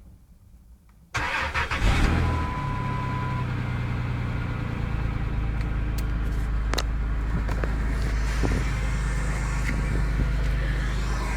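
A Chrysler 300M's engine cranks about a second in and catches, then idles steadily, with a short steady whine for about a second just after it starts. This is a morning start, on which the owner hears a strange friction sound.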